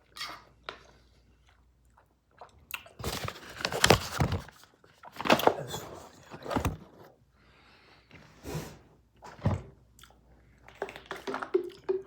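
A person chewing a mouthful of spinach close to the microphone: irregular bursts of wet chewing noises with short quiet gaps between them.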